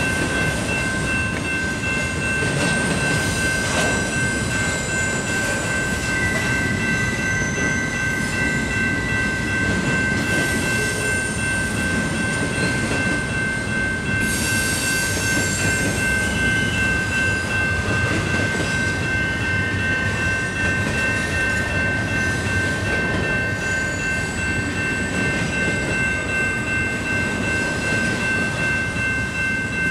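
CPKC double-stack intermodal freight train rolling steadily past a grade crossing, its wheels clattering over the rail joints with some high wheel squeal, loudest about halfway through. A steady ringing of the crossing bell runs over it.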